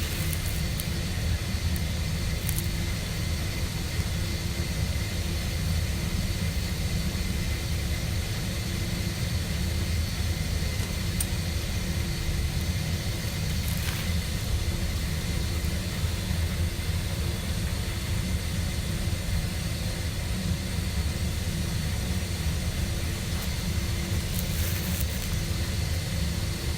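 A State water heater running through its startup after its time clock was corrected, giving a steady low rumble with a faint steady hum. There are a few faint clicks, one about 14 seconds in and some near the end.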